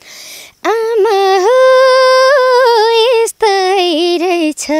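A young woman singing a Nepali song without accompaniment: long held notes with small ornamental turns, with quick breaths between the phrases.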